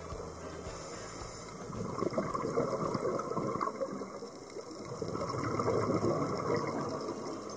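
Underwater scuba sound: bubbles from a diver's regulator gurgling out in bursts, louder about two seconds in and again around five to six seconds in.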